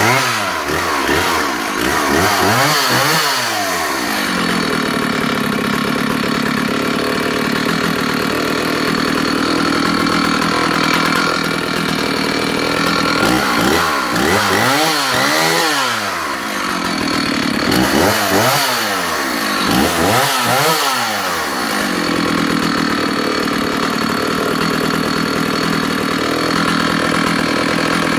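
Stihl 056 AV 87cc two-stroke chainsaw running, mostly at a steady idle, revved up and back down in three spells of quick throttle blips: near the start, around the middle, and again shortly after.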